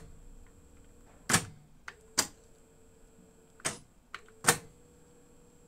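Pioneer CT-F900 cassette deck's solenoid-driven transport clicking as its transport buttons are pressed in turn, about four distinct clicks at uneven intervals with smaller ones between. A faint steady hum runs between some of the clicks. The deck is switching modes normally now that its no-play fault has been repaired.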